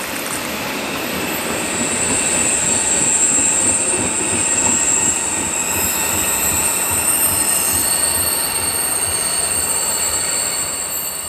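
České dráhy passenger coaches rolling over the station tracks as the train moves away, their wheels giving a steady high-pitched squeal over the rumble. The sound begins to fade near the end.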